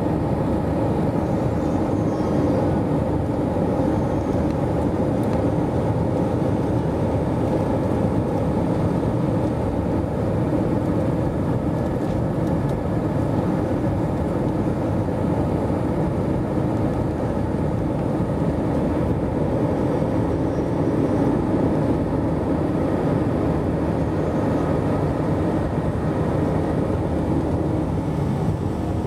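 Steady cabin noise of an airliner in flight: the even rush of engines and airflow heard from a window seat, deep and unbroken.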